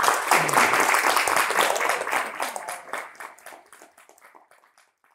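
Audience applauding, a dense patter of many hands clapping that thins out and fades away over the last couple of seconds.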